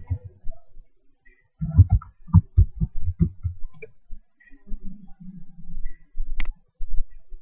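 Laptop keyboard keystrokes: a quick run of about eight dull, low thumps as a word is typed. Near the end comes one sharp click of a pointer button.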